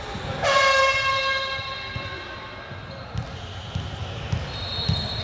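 Basketball being dribbled on a hardwood gym floor, a thump every half second to second. A loud pitched tone sounds about half a second in and fades out over the next two seconds.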